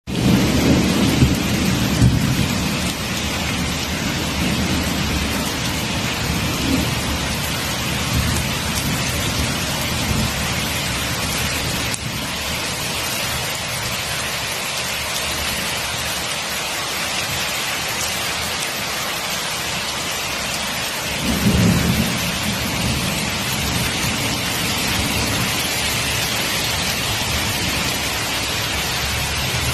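Steady heavy rain falling, with low rumbles of thunder swelling in the first few seconds and again about two-thirds of the way through.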